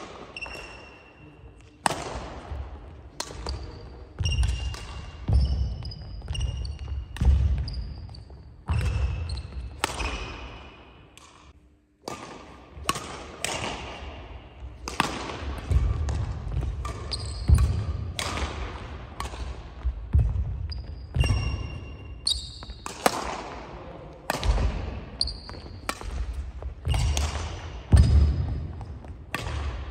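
Badminton singles rally on a wooden gym floor: sharp racket strikes on the shuttlecock about once a second, with shoes squeaking and feet thudding on the boards, and each strike echoing in the hall. The play breaks off briefly about twelve seconds in, then starts again.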